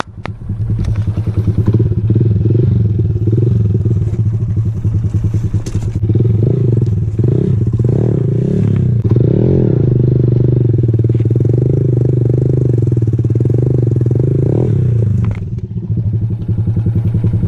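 Honda MSX 125's single-cylinder four-stroke engine running as the bike is ridden over rough grass, its pitch rising and falling with the throttle. It drops back briefly near the end, then picks up again.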